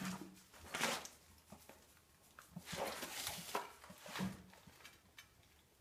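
Camera handling noise: rustling and light knocks as the camera is picked up and repositioned, with one burst a little under a second in and a longer one around three seconds in.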